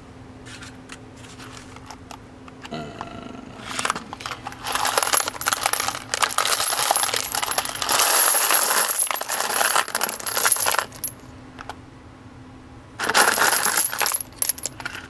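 Empty .223 brass cartridge cases being dropped into a vibratory tumbler bowl onto its cleaning media, a dense jingling clatter of brass on brass. It comes in two pours: a long one from about four to eleven seconds in, and a short one near the end.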